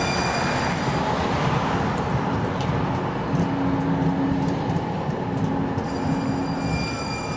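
Siemens S70 electric streetcar moving along the rails: a steady rumble of the car and its wheels, with a steady hum through the middle and a few faint clicks.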